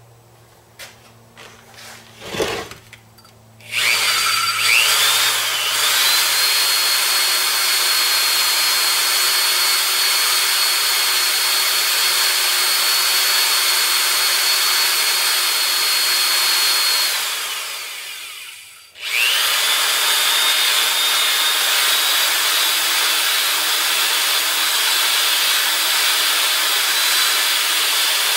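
A few knocks as things are handled, then an electric heat gun switches on: its fan whines up to a steady high pitch over a loud rush of air. A few seconds past the middle it is switched off and winds down, then starts again and runs steadily.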